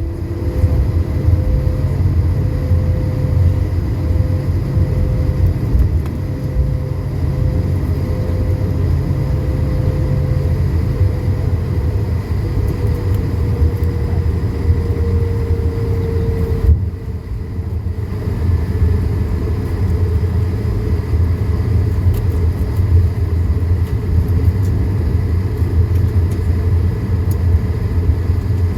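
Cabin noise of an Airbus A220-300 taxiing, heard from a window seat: a steady low rumble from its Pratt & Whitney PW1524G geared turbofans at taxi power and the wheels rolling on the taxiway. A thin tone slowly falls in pitch and drops out a little past halfway.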